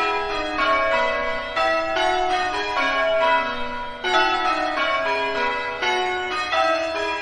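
A peal of church bells: several bells of different pitch struck one after another, about two to three strikes a second, each ringing on under the next. The sequence repeats about every four seconds, like rounds in change ringing.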